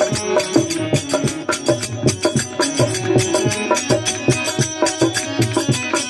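Instrumental introduction to a Rajasthani folk bhajan: melodic instrument lines over a steady, quick percussion beat, with no singing yet.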